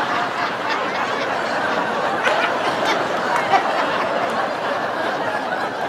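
Theatre audience laughing steadily at a punchline, a crowd of many chuckles and laughs blended together.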